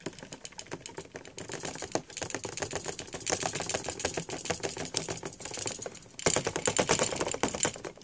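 Fast, dense clicking and rattling of hard plastic, like rapid typing, as a plastic Transformers toy is shaken and handled; it thickens after about a second, drops out briefly around six seconds in, then comes back louder.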